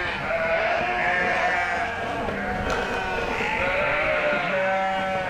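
A barnful of sheep and lambs bleating, many overlapping calls with no let-up: the flock clamouring at chore time.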